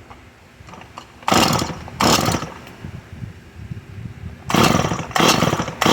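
Stihl MS 193 T two-stroke chainsaw being pull-started on starting fluid: five short bursts of cranking and firing, two about a second apart early and three more in quick succession later, none catching into a run. The engine fires and kicks back but won't keep running on a saw sold for parts whose carburetor needs cleaning.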